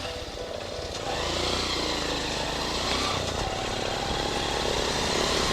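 Motorcycle engine running on the move under a steady rushing noise, getting louder about a second in.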